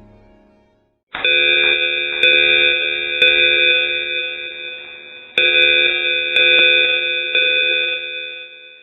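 A bell-like metallic ringing, struck about once a second, each strike ringing on into the next. It comes in after music fades out.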